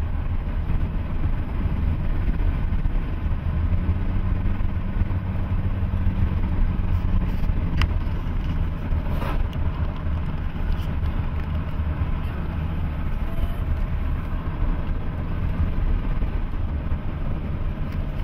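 Steady cabin noise of a car driving at highway speed: engine and tyre rumble, with a couple of brief clicks around the middle.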